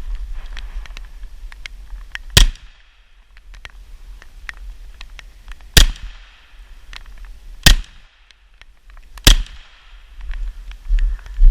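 Four single gunshots from a KRISS Vector carbine firing .45 ACP, spaced about one and a half to three and a half seconds apart, each a sharp crack with a short echo trailing after.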